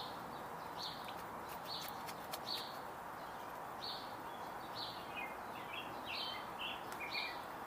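Birds chirping: a short, high note repeated about once a second, with a run of quicker, lower chirps near the end, over a steady hiss of outdoor background noise.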